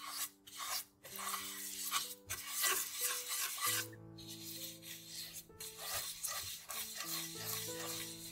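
A bristle pastry brush scrubbing oil over the nonstick surface of a multi-well pancake pan in repeated quick strokes, a dry scratchy rasp with short breaks between strokes.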